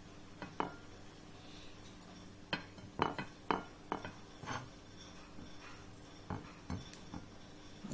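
Metal spoon clinking and tapping against a plate in a scattered series of short, sharp clicks, busiest in the middle, as rice filling is scooped onto grape leaves being rolled by hand.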